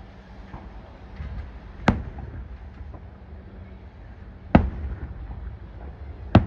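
Fireworks going off: three sharp bangs a couple of seconds apart, over a low steady background rumble.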